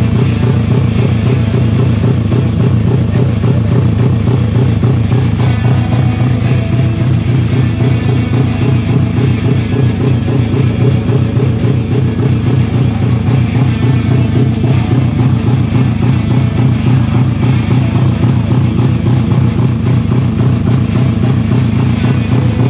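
Suzuki Raider 150 carbureted drag bike's single-cylinder four-stroke engine idling steadily through an aftermarket exhaust, with a fast, even beat and no revving.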